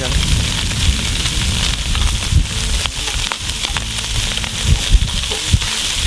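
Sliced smoked sausage sizzling in olive oil in a cast-iron Dutch oven over charcoal, stirred with a wooden spoon that knocks against the pot several times. The pan is very hot: the sausage is crisping fast over coals the cook suspects are a bit too hot.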